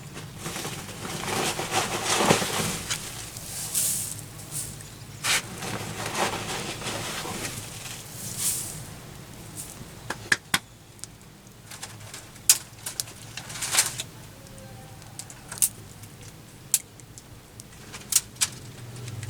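Cooking and food-preparation handling sounds: rustling and scraping during the first half, then scattered sharp clicks and knocks.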